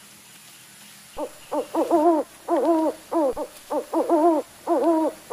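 A rapid run of about a dozen short hoots, each bending up and down in pitch, starting about a second in and coming in quick clusters.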